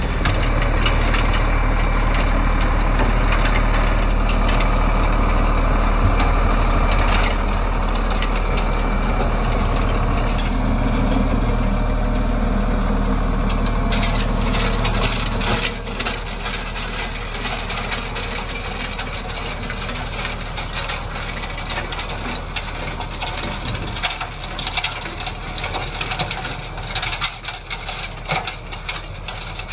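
Kioti CK3510 compact tractor's diesel engine running under load as it drives a rear three-point, PTO-driven WIFO snowblower, with a rapid clatter of snow and ice striking the blower's impeller and chute. The engine sound drops back about halfway through, while the clattering goes on and grows sharper near the end.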